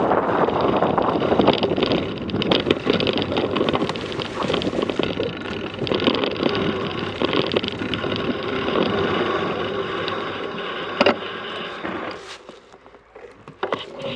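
Mountain bike riding over a rough dirt trail: tyre noise and rapid rattling knocks from the bike, with wind buffeting the microphone. A sharp click comes about eleven seconds in, and the noise falls away about twelve seconds in as the bike slows.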